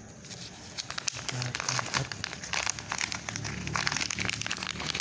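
Plastic courier mailer pouch crinkling and rustling in the hands as it is worked open, a dense, irregular crackle that grows louder after about a second.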